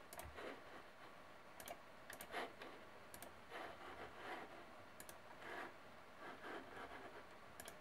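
Computer mouse buttons clicking faintly a handful of times at irregular intervals, some as quick press-and-release pairs, as settings are selected in the software.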